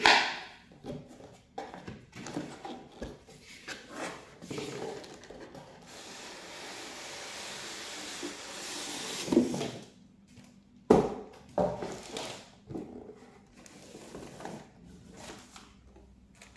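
Cardboard retail box being handled and opened on a table: scattered knocks and scrapes, a long rustling slide of cardboard and plastic wrap about six to nine seconds in, and sharp knocks at the start and about eleven seconds in.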